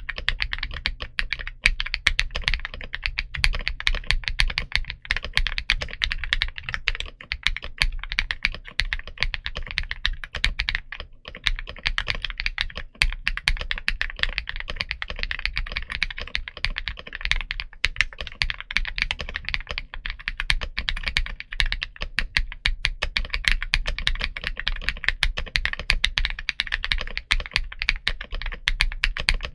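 Fast, continuous typing on an Akko Mod 007 V3 mechanical keyboard fitted with Princess linear switches, an FR4 plate and PBT dye-sub Cherry-profile keycaps: a dense run of keystrokes with a brief pause about eleven seconds in.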